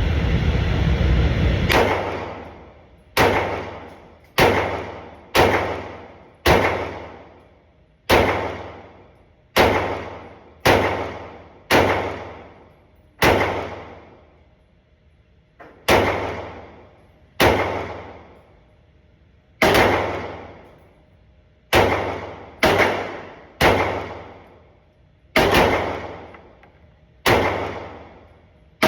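Glock 45 9mm pistol fired in slow, single shots, about twenty in all at roughly one to one-and-a-half second intervals, each crack trailing off in a long echo. A steady loud noise comes before the first shot.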